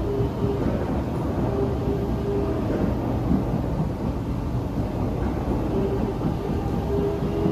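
SMRT Kawasaki–Nippon Sharyo C751B metro train running along the line, heard from inside the car: a steady low rumble of wheels on rail, with a faint hum that comes and goes.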